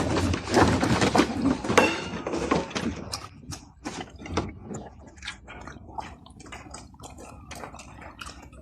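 Tiger cubs feeding: a run of irregular wet clicks and smacking sounds, busy and louder at first, then quieter and sparser.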